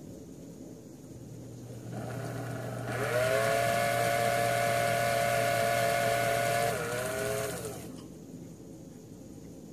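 Small electric motor spinning a fine drill bit, running up to a steady whine for about four seconds as it drills out a brass barrel hook to a clean cylindrical hole for a new steel pin, then winding down.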